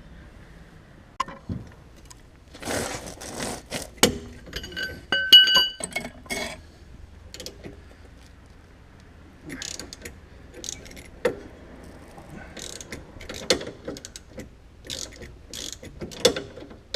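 Hand tools working on a sway bar end link nut: bursts of ratchet-wrench clicking and metal-on-metal clanks, with a short metallic ring about five seconds in. The end link's stud spins with the nut, so the nut has to be held while it is loosened.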